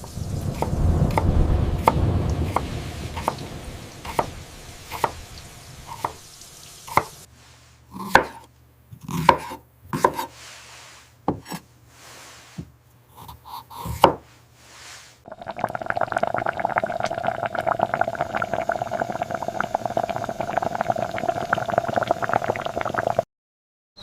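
Kitchen sounds: a knife chopping on a wooden cutting board in sharp, irregular knocks, over a low rumble at first. After about fifteen seconds this gives way to a steady noise with a hum in it, which cuts off suddenly shortly before the end.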